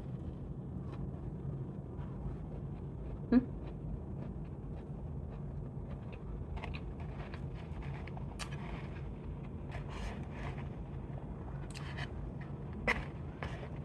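Faint scattered rustles and light clicks from handling, over a steady low hum. A sharp knock comes about three seconds in, and a smaller one near the end.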